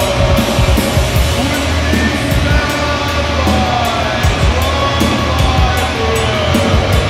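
Loud, continuous background music with a heavy bass and gliding higher notes above it.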